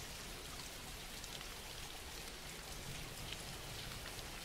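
Faint, steady rainfall, a recorded rain background track.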